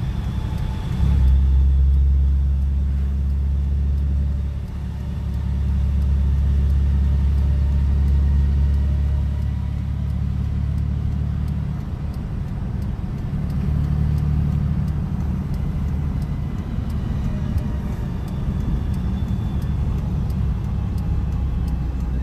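Steady low engine drone of a large farm machine travelling along a road. It grows louder about a second in and eases slightly a couple of times.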